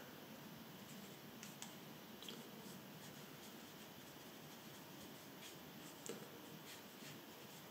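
Faint brushing of a flat paintbrush laying gouache onto paper, with a few soft ticks, over quiet room tone.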